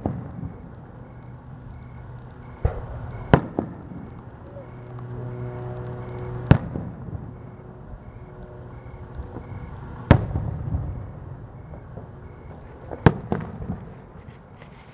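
Aerial firework shells bursting at a distance: about six sharp booms a few seconds apart, each followed by a rolling echo, over a steady low hum.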